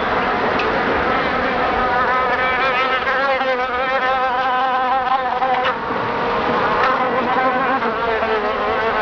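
Several flies buzzing steadily, their pitches wavering up and down over one another.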